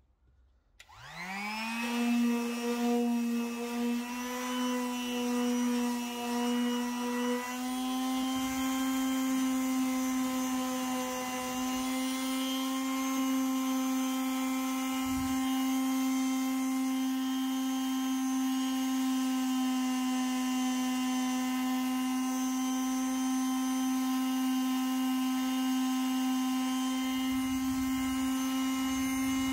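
Makita orbital finishing sander switched on about a second in, its motor whine rising to full speed, then running steadily with a small change in pitch as it sands the corner of a pine board to round it off.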